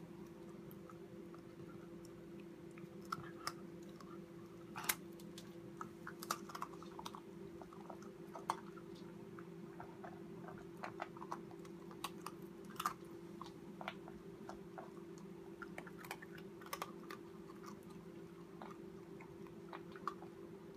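Corgi puppy chewing and gnawing on a treat held in a hand: irregular crunches and clicks of teeth, a few louder ones here and there. A steady low hum runs underneath.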